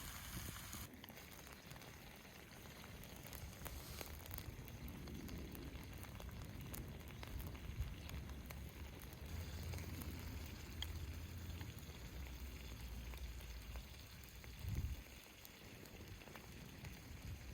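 Wood cooking fire crackling, with scattered small snaps over a low steady rumble. There is a short louder low thump near the end.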